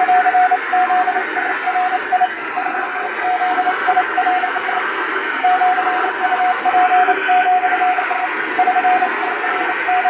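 High-speed Japanese wabun Morse code sent on an electronic keyer: a single steady tone keyed on and off in quick dots and dashes, with a longer gap in the middle, over a steady hiss.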